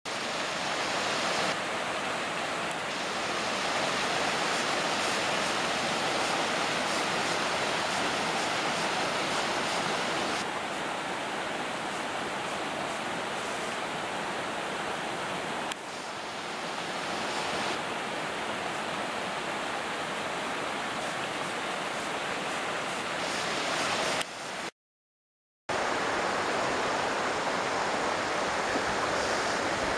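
Steady rushing of falling water from Hiilawe Falls. The sound cuts out for about a second near the end, then resumes.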